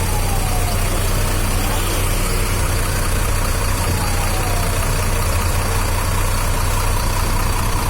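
Used bus's engine idling through a loud aftermarket exhaust: a steady deep hum, with a faint tone that falls in pitch twice.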